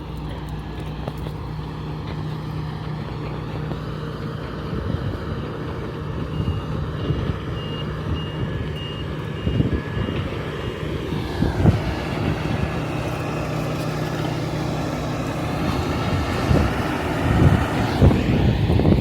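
Heavy construction machine's diesel engine running with its reversing alarm beeping steadily for several seconds. Rough noise, likely wind, builds up in the second half.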